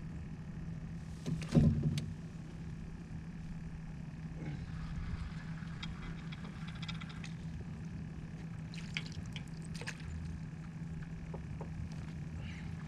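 Steady low hum from a boat's motor, with water lapping against the hull. About a second and a half in there is a single hard knock on the boat, and light clicks and rattles come later.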